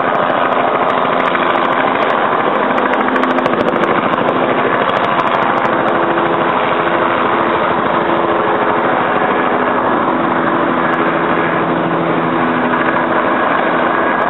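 Helicopter engine and rotors running steadily, a loud mechanical hum with a rapid pulse.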